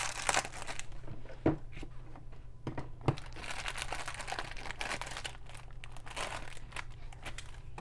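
Clear plastic wrapper crinkling as it is pulled open by hand, with a few sharp clicks.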